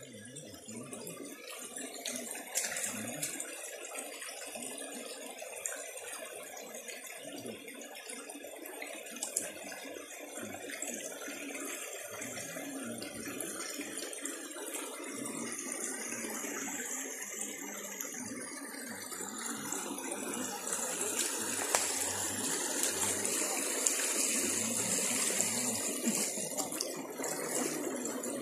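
Steady rushing of running water from a riverside stream, with a high hiss that grows a little louder over the second half and a few light clicks.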